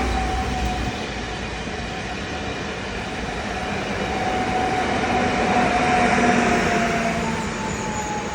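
Train passing, its rumble swelling to a peak about six seconds in and then easing off, with a single steady tone that slides slowly lower in pitch.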